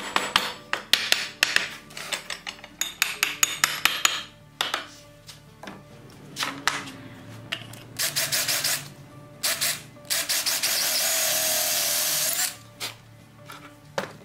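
Cordless drill boring through the hole in an iron brake fitting into a wooden brake board: a couple of short bursts, then a steady run of about two seconds that stops short. Before it, in the first few seconds, a rapid series of short sharp strokes on the work.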